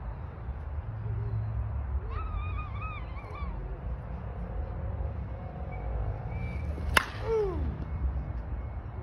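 A new slowpitch softball bat hits a softball once, a single sharp crack with a brief high ring about seven seconds in. Steady wind rumbles on the microphone throughout, and a short wavering call comes a few seconds before the hit.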